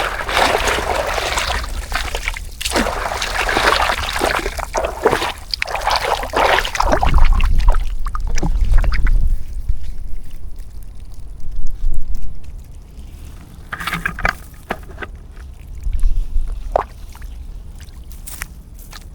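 Water splashing and pouring as a fish trap is lifted out of a pond, heavy for the first several seconds, then a few separate splashes.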